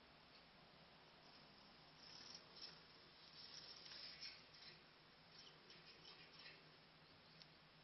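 Faint scattered clicks and rustles from small songbirds moving about in an aviary cage, busiest in the middle.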